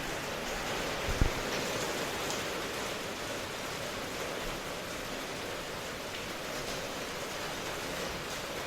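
Steady rain ambience, an even hiss of falling rain, with a brief low thump about a second in.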